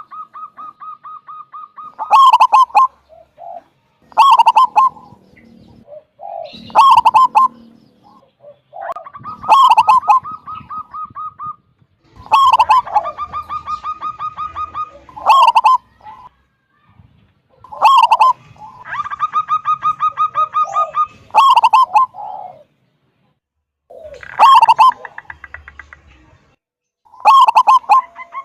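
Zebra dove (perkutut) singing: phrase after phrase of a few loud notes running into a long, fast series of short cooing notes, repeated about every two to three seconds.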